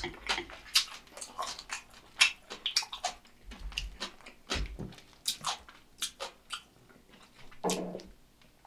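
Close-miked eating sounds: irregular wet clicks and smacks of chewing fried sweet and sour pork, with wooden chopsticks clicking in a plastic container of sauce as pieces are picked up and dipped.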